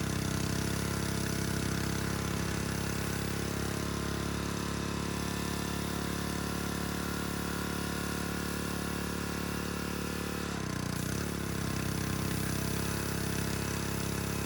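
A small engine running steadily. Its pitch dips briefly about ten seconds in, as if under load, then comes back up.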